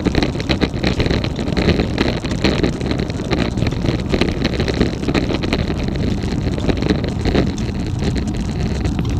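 Road bike riding, with wind buffeting the action camera's microphone and rolling road noise, and many irregular clicks and rattles throughout. The louder rattle is the top tube bag; the clicking is an unexplained noise from the bike.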